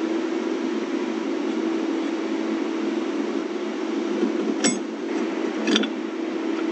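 Two sharp metallic clinks, about four and a half and five and a half seconds in, from U-bolt nuts being spun off a leaf-spring plate by hand and handled. A steady low hum runs underneath.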